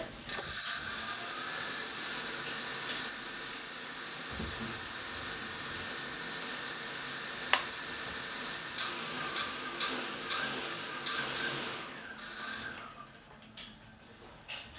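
Brushless motors of a DJI F550 hexacopter spinning its propellers, giving a steady high-pitched whine that starts about a quarter second in. Near the end the whine cuts out, comes back briefly, then stops as the motors are shut down.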